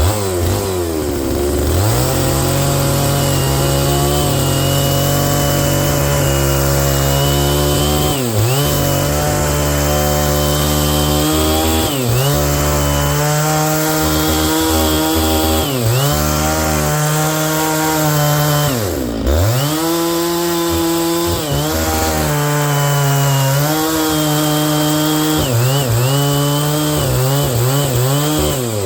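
Stihl MS660 two-stroke chainsaw with a ripping chain on a 36-inch bar, running at high revs while ripping a log lengthwise. About five times the revs dip sharply and climb back up.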